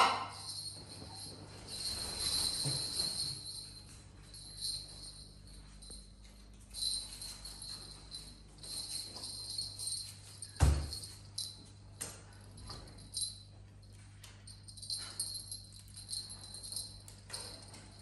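A small jingle bell toy being shaken, jingling on and off in short bursts, with one thump about ten and a half seconds in.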